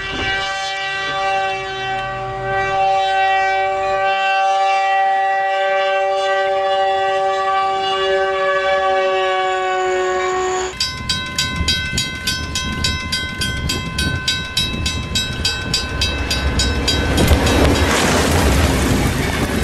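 Diesel locomotive horn held in one long chord, its pitch sagging slightly, as a train ploughs through deep snow. About halfway through it gives way to a second locomotive horn over rapid rail clatter, about four clicks a second. Near the end a loud rush of noise comes as the thrown snow sweeps over.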